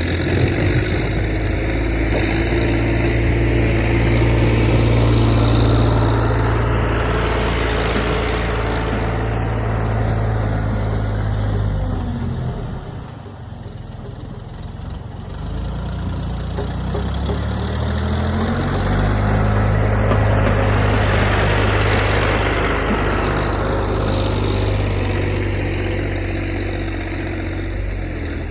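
John Deere backhoe's diesel engine running at high revs under work. It drops to a low speed about twelve seconds in and revs back up a few seconds later.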